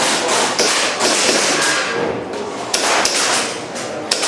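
Airsoft pistol shots, a string of sharp cracks and knocks in quick succession.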